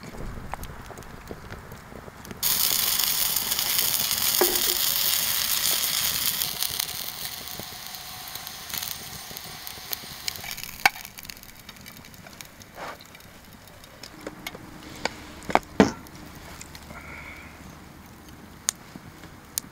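Sausages sizzling in a frying pan over a campfire. The sizzle starts suddenly a couple of seconds in, is loudest for a few seconds, then slowly dies down. A few sharp clinks come later, the loudest near the end.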